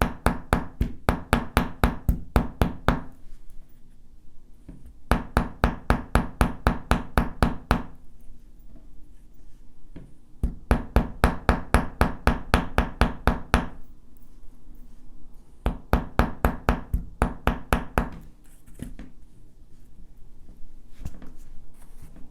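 Small hammer striking a wire S-clasp on a hard surface in quick runs of about six blows a second, four runs with short pauses between, texturing and work-hardening the wire to make a more secure clasp.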